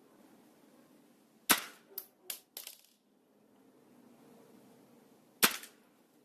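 Two shots about four seconds apart from a Snow Wolf M24 airsoft sniper rifle firing at about 680 fps, each a sharp crack. Three lighter clicks follow the first shot within about a second.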